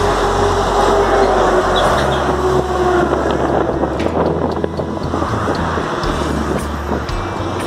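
Steady rush of highway traffic passing close by, with a vehicle's engine tone sliding slightly lower over the first three seconds as it goes past.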